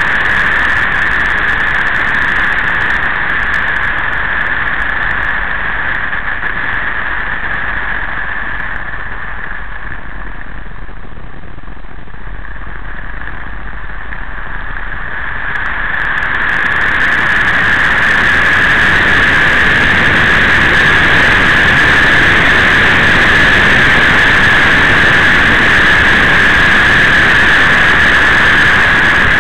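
Motorcycle ride heard from the bike: a continuous rush of wind over the microphone mixed with engine noise, with a steady high-pitched hum. It eases off for several seconds around the middle, then rises and stays louder.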